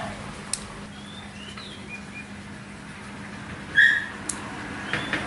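Dog nail clippers snapping shut with a sharp click about half a second in, with faint high bird chirps. About four seconds in the dog gives one short, loud high whine, and a few more small clicks follow near the end.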